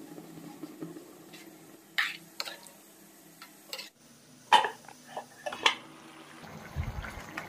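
Water poured into a frying pan of chicken liver and oyster mushroom curry, then several sharp metal clinks as a steel lid and utensil knock against the pan, the loudest about four and a half seconds in.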